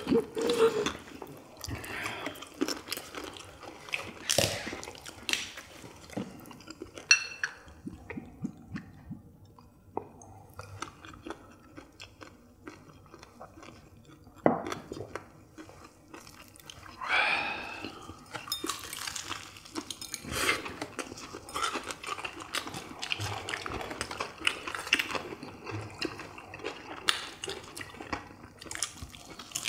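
People chewing and biting into fried chicken drumsticks, with scattered crunches and clicks and the odd clink of dishes.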